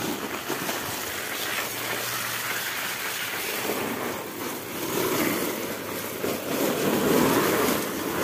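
Water spraying from a garden hose onto a nylon tent's groundsheet and walls, a steady hiss and splatter as the tent is rinsed.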